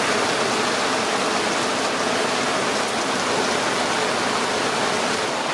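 Heavy rain pouring down on a sailboat's canvas cockpit cover and deck: a steady, dense hiss.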